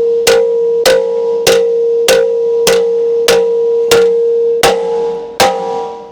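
Hammer striking a bent steel part against a flat steel block, about nine blows at a steady beat of roughly one and a half a second, each leaving a clear metallic ring. The part is being hammered flat to take a crown out of it.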